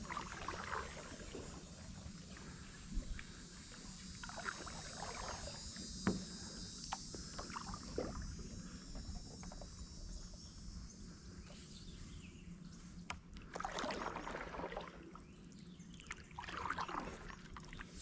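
Stand-up paddle strokes in water, a short splashing swish every few seconds, the strongest two near the end. Two sharp knocks come a few seconds apart early on.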